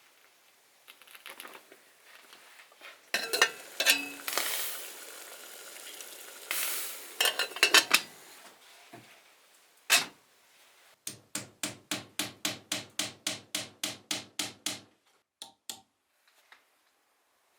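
Utensils clattering against pots and dishes, then a single sharp knock, then a quick, even run of about twenty strokes, roughly five a second.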